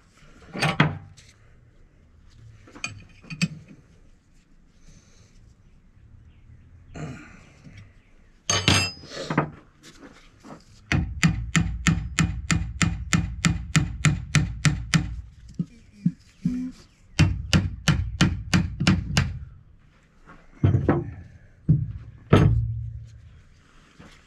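Cordless impact wrench hammering on a gear puller's forcing screw in two runs of rapid impacts lasting a few seconds each, trying to pull the drive gear off a Bendix Tru-Flo 550 air compressor's shaft; the gear is stuck fast. Single metallic knocks and clanks of tools come before and after.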